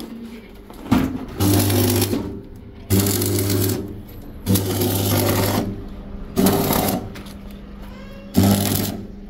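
Electric stick (arc) welding: five short runs of crackling arc with a low steady buzz, each about a second long, with short pauses between them.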